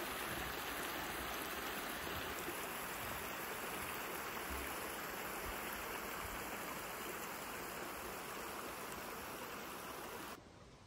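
Steady rushing of running water, like a small stream, which drops off abruptly near the end to a faint hiss.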